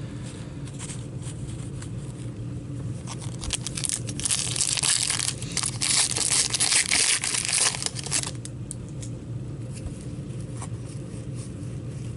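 A foil trading-card pack wrapper being torn open and crinkled by gloved hands, loudest for about four seconds in the middle, with small handling clicks before and after. A low steady hum runs underneath.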